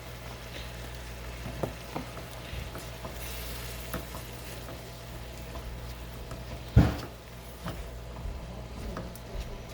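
Food frying in a pan, with light clicks of stirring and one loud knock of a utensil or pan about seven seconds in, over a steady low hum.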